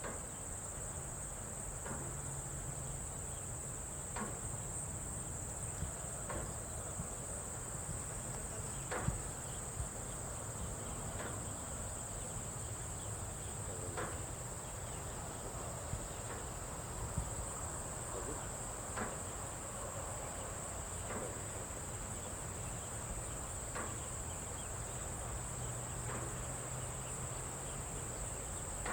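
A chorus of crickets, chirring steadily at a high pitch, with faint soft clicks every couple of seconds and a low hum underneath.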